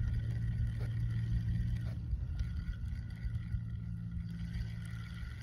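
A motorboat engine running at a distance, a steady low drone that dips briefly about two seconds in and then carries on.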